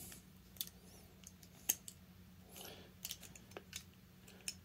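Faint, scattered small clicks of a thin wire retainer clip being worked onto the plastic cover of a Rotax 951 RAVE exhaust valve, with a brief soft rustle of handling about halfway through.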